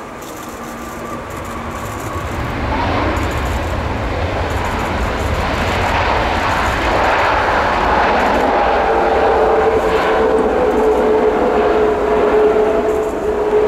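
Airbus A330-900 jet airliner's Rolls-Royce Trent 7000 engines roaring during the landing rollout just after touchdown, the roar building over the first few seconds and then holding loud. A steady whine sets in about two-thirds of the way through.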